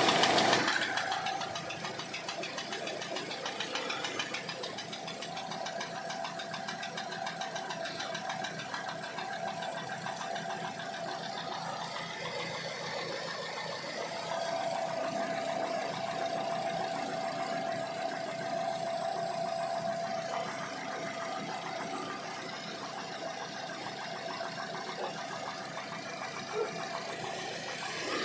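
Chevrolet Cruze 1.8 four-cylinder petrol engine running steadily with a fast, regular knock in time with the engine, a newly appeared knock whose cause the owner does not know.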